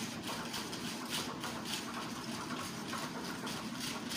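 A whisk stirring a milk, cream and strawberry-syrup mixture in a plastic container, with repeated quick strokes about two or three a second, over a steady low hum.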